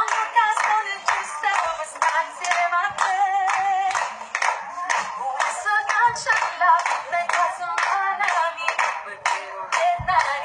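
Hands clapping a steady beat along with a woman singing an Italian pop song over music.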